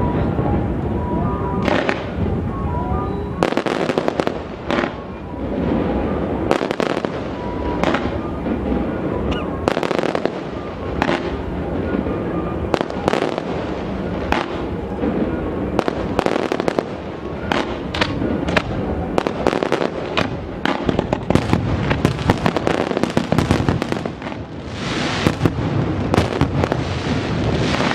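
Fireworks going off in a continuous barrage: many sharp bangs, several a second, over a constant dense din, easing briefly about three-quarters of the way through before picking up again.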